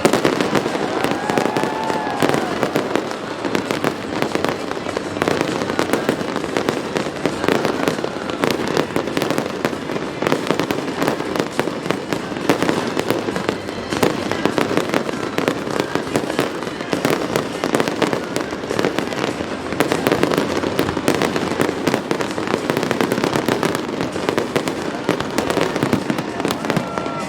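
Aerial fireworks display going off continuously: a rapid, unbroken stream of bangs and crackling with no pauses.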